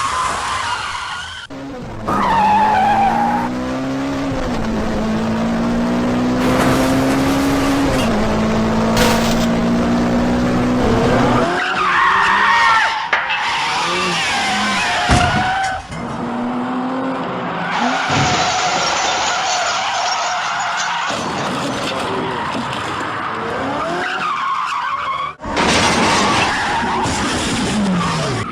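Dubbed-in car sound effects: engine revving up and down and tyres skidding and squealing, in several separate clips with sudden cuts between them, mixed with music.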